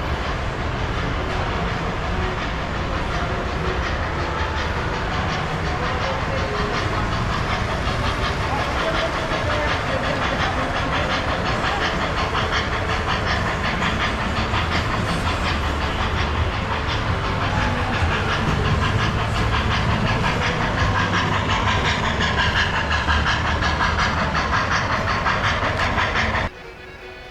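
Model train running on its layout track, a steady rattling clatter of wheels over the rails. The sound cuts off suddenly near the end, leaving a much quieter background.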